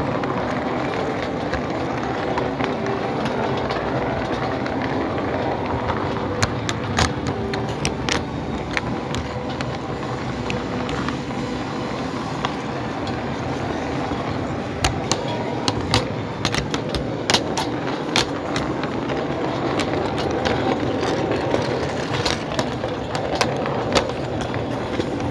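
Large-scale model train running on the layout's track: a steady rolling rumble with sharp clicks of its wheels over rail joints and points, coming in scattered clusters and growing denser in the second half.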